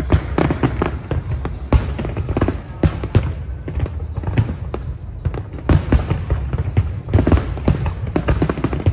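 Large fireworks display: a rapid, unbroken run of bangs and crackling bursts over a constant low rumble, with several louder booms standing out.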